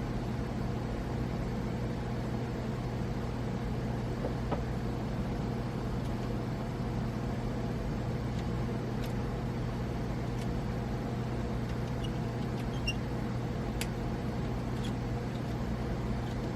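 Steady low hum of room noise with a few faint small ticks, from a set screw being threaded into a bipod mount.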